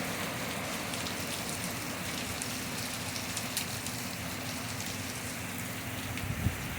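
Steady heavy rain falling and splashing on pavement and standing floodwater, with a short low thump near the end.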